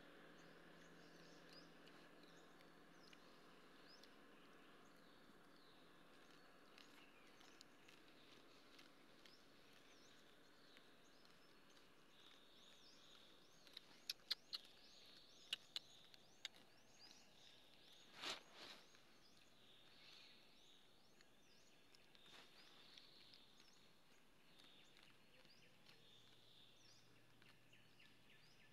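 Near silence: faint outdoor ambience with small, distant bird chirps. About halfway through come a handful of sharp clicks, followed a few seconds later by a short rustle.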